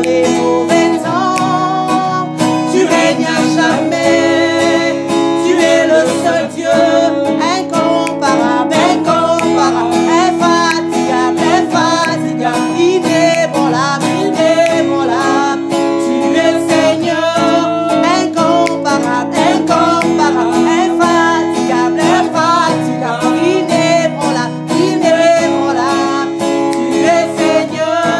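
Worship song: a woman singing, accompanied by a strummed acoustic guitar.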